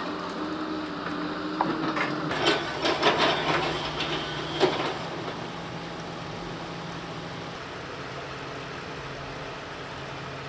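Low, steady engine hum of heavy machinery at a debris site, with a few seconds of clattering and knocking of wood and rubble starting about a second and a half in.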